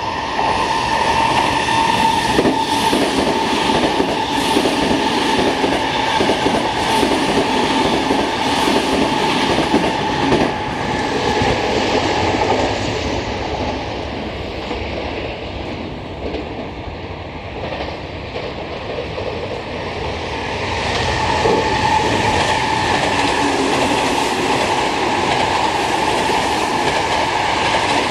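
Rapid electric commuter trains running through a station on the passing tracks without stopping: wheels clattering over rail joints and points under a steady high tone. The sound is loud for the first dozen seconds, eases off, then builds again about 21 seconds in as a Toyo Rapid Railway 2000 series train runs past close by.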